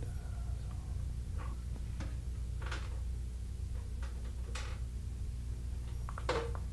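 A few scattered light clicks and rustles of alarm-panel zone wires and a small screwdriver being handled, over a steady low hum.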